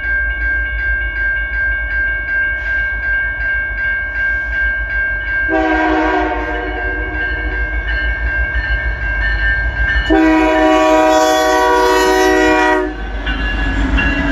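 A CN freight locomotive sounds its air horn for the crossing in two long chord blasts, the second louder, over a crossing bell that rings steadily. Near the end the locomotive's rumble arrives as it passes.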